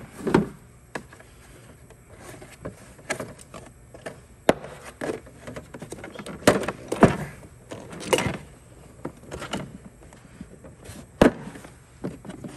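Tools and toolbox drawers being handled: irregular knocks and clatter, with the sharpest knocks a little past halfway and near the end.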